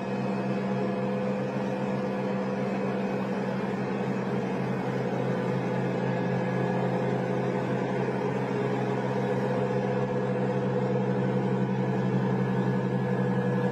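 Aircraft engines droning steadily, a constant low hum with a few fixed tones over a rushing noise, cutting off suddenly at the end.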